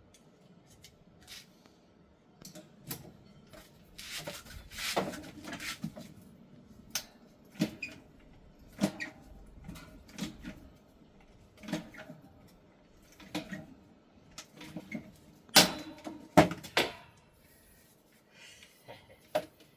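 Hand tool clicking and snapping while rivets are set in an aluminum crab scoop: a string of sharp, separate clicks and knocks at uneven intervals of about a second, the two loudest coming close together a little after three-quarters of the way through.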